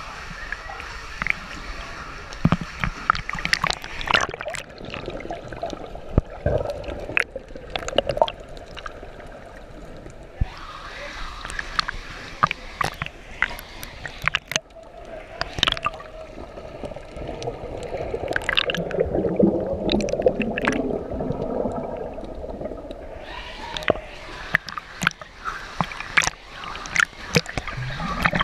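Seawater sloshing, gurgling and splashing against a waterproof camera that rides at the surface and dips in and out of the water. There are many short sharp splashes throughout, with a denser, more muffled churning of water near the middle.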